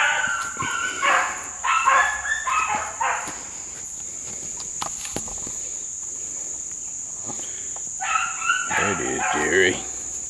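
A pack of running hounds barking and bawling on a trail: a cluster of calls in the first three seconds, a quieter stretch, then more calls about eight seconds in. A steady high insect buzz runs underneath.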